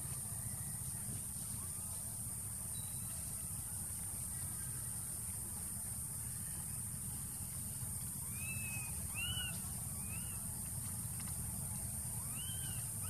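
Baby monkey giving short, high, squeaky calls that rise and fall, several in a row starting about two-thirds of the way in, over a steady low rumble and a high hiss.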